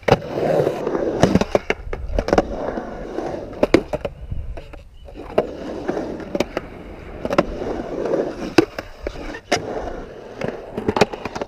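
Skateboard wheels rolling on concrete with a steady rumble, broken by many sharp clacks of the board striking the concrete, the loudest just after the start as an ollie lands.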